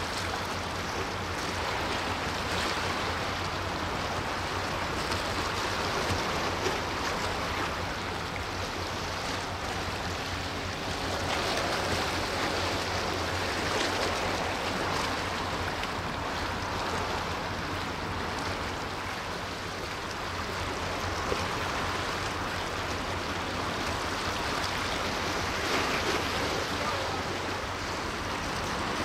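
Steady rush of seawater and small waves, swelling and easing every few seconds, over a steady low hum.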